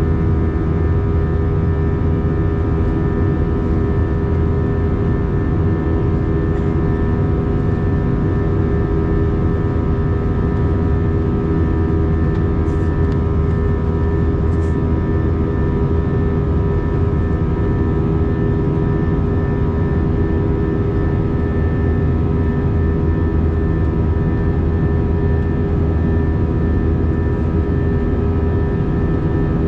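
Airbus A321 cabin noise: a steady rumble from the jet engines and airflow, with a set of steady tones running through it and no change in level.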